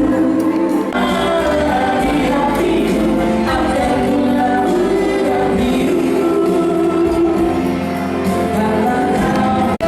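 A song sung by a vocalist with band accompaniment, running steadily and briefly dropping out for an instant near the end.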